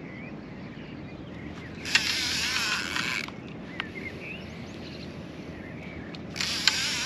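Spinning reel's drag slipping and giving line as a hooked wels catfish pulls: two whirring runs of about a second and a half, one about two seconds in and another near the end, each starting with a sharp click.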